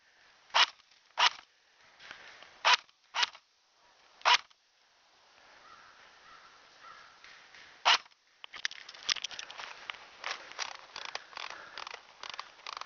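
Sharp single pops of airsoft guns firing, six shots spaced irregularly over the first eight seconds. From about eight and a half seconds, steady crunching and crackling of snow and brush underfoot.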